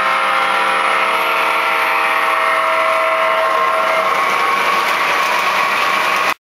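Model trains running on a layout: a steady whir of electric motors and wheels on track, with several steady motor tones that fade out about midway through. The sound cuts off suddenly near the end.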